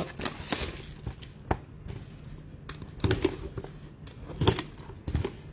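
A trading card pack being opened and handled: scattered crinkles, taps and rustles of wrapper, cardboard and cards.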